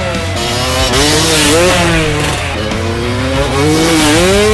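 Dirt bike engine revving, its pitch rising and falling over and over as the throttle is opened and shut.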